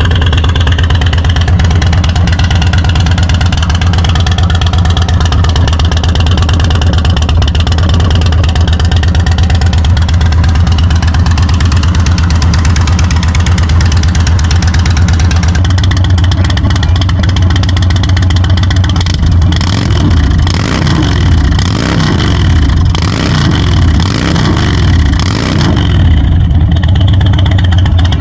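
2024 Indian Sport Chief's Thunderstroke 116 air-cooled V-twin running steadily at idle on a free-flowing exhaust. About two-thirds of the way in, the sound grows uneven and pulses up and down.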